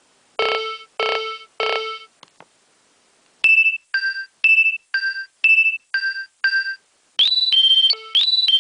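Nokia 2300 mobile phone ringtones played in turn: three short ringing notes, a pause, then a run of short beeps alternating between two pitches, and about seven seconds in a faster, busier electronic melody begins.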